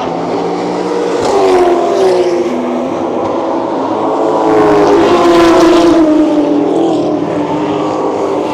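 Race car engines passing at speed, their pitch falling as each goes by, with the loudest passes about a second and a half in and again around five and a half seconds.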